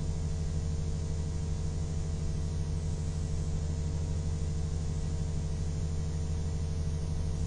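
Steady low electrical hum, a buzz made of evenly spaced tones that holds unchanged, with faint hiss.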